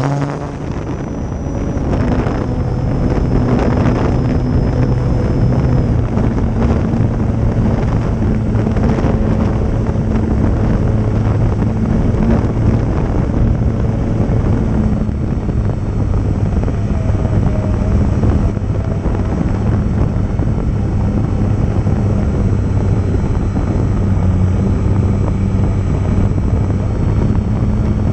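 Electric RC airplane's motor and propeller running steadily in flight, a low hum with a thin high whine that steps in pitch a few times as the throttle changes, under heavy wind noise on the microphone.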